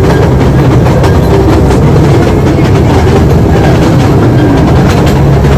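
Train running along the track: a loud, steady rumble with scattered clicks of wheel clatter.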